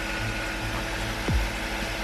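Perkins marine diesel engine running steadily with a low, even pulse. About a second in, a short low thud drops quickly in pitch.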